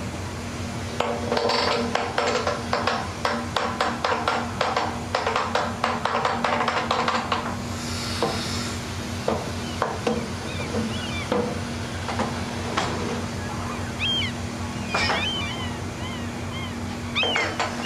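A steady low engine hum on a fishing trawler, with a dense run of rapid clattering and ticking from about one second in to about seven seconds. Seabirds call in short chirps near the end.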